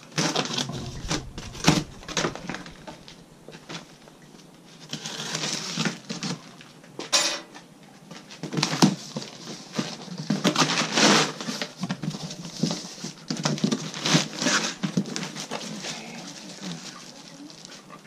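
Cardboard shipping carton being opened by hand: packing tape torn from the seam and flaps scraped and pulled open, in irregular rustles, scrapes and knocks.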